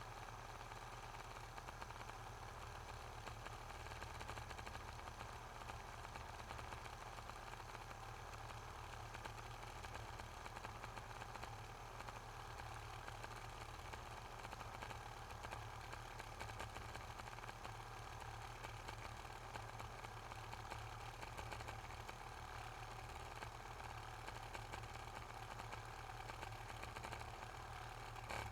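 Nespresso Aeroccino milk frother running steadily, its magnetically driven whisk spinning in the milk: an even, low motor hum.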